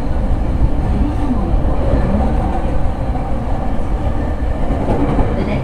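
Running noise inside a JR East E231-500 series commuter car, heard near a motor car: a steady, loud, low rumble from the wheels on the rails and the traction motors, with faint wavering tones over it.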